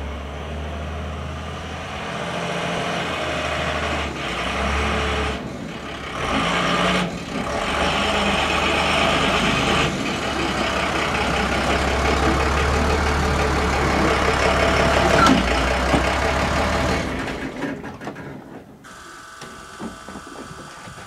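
Engine of a Mitsubishi Fuso rental box truck running steadily as the truck is driven and manoeuvred into place. The engine sound drops away about three-quarters of the way through.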